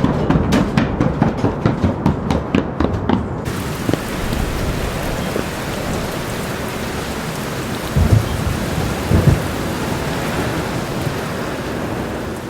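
Steady heavy rain, with thunder rumbling twice about eight and nine seconds in. For the first three seconds or so, rhythmic drum-like hits from the preceding music run over the rain before they stop abruptly.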